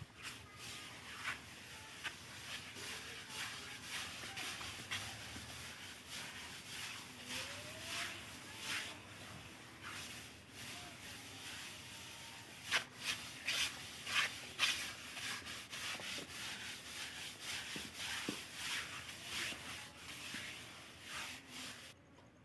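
Hand float rubbed over fresh cement plaster on a wall, a gritty scraping in repeated short strokes, about two a second, as the plaster surface is floated smooth. The scraping stops suddenly near the end.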